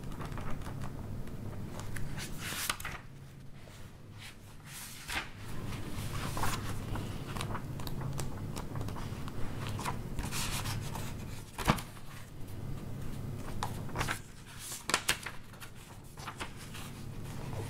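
Library room tone: a steady low hum with scattered rustling and handling noises, and one sharp click about twelve seconds in.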